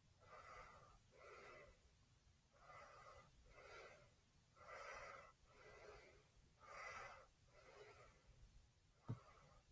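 A person breathing hard close to a phone's microphone: quiet, rhythmic in-and-out breaths, about four breath cycles in all. There is a short knock near the end.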